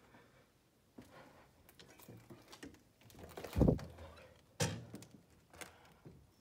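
Footsteps and scattered thumps and knocks, about one a second, with a heavy thump about three and a half seconds in and a sharp knock a second later.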